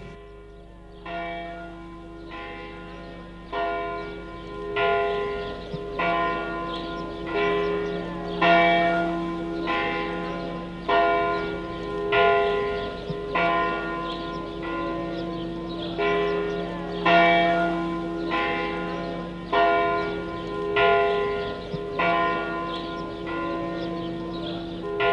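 Church bells ringing, a stroke about every second and a quarter, each ringing on into the next.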